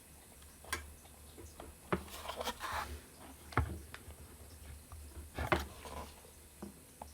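Scattered small clicks and knocks, with a short stretch of scraping about two to three seconds in, as a screw is worked into a hole in a 3D-printed plastic case.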